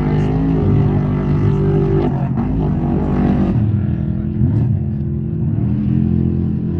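Off-road race trucks' engines running hard through a jump section, their pitch rising and falling with throttle changes, the note changing around two seconds in and again a little later.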